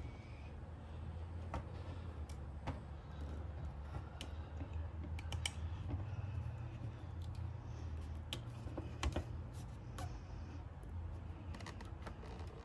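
Scattered, irregular light clicks and metallic taps of hand tools working the reservoir's mounting bolts, over a low steady hum.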